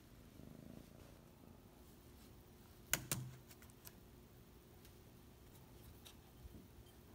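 Near-quiet room with a few light taps and clicks, the loudest about three seconds in, from a Bengal kitten pawing at a laptop.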